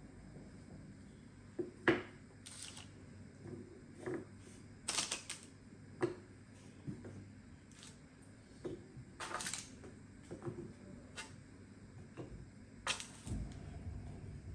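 Irregular light clicks, taps and knocks with a few short rustling swishes, as of small household objects being handled and set down, over a low steady room hum.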